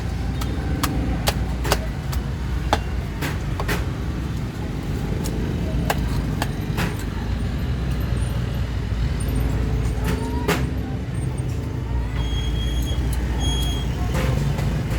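Cleaver chopping meat in sharp, irregularly spaced strikes, over a steady low rumble of road traffic.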